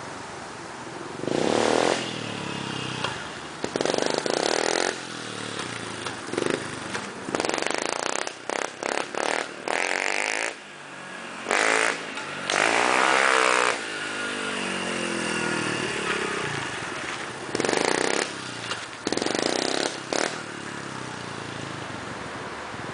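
Honda CRF70's small four-stroke single-cylinder dirt bike engine running, blipped repeatedly: short bursts of throttle, some quick stabs in a row, and one longer rev partway through whose pitch climbs and falls.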